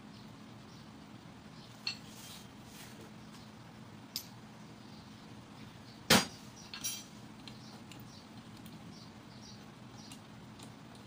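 Small metallic clinks and taps from cylinder head bolts and parts being handled and fitted on a Honda GX110 engine, with one sharp metal knock about six seconds in followed by a few quick ticks.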